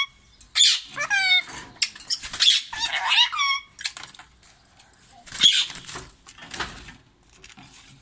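An Indian ringneck parakeet giving a series of high, pitch-bending calls in the first few seconds, then a couple of short flurries of wing flapping about midway through as it moves around its cage.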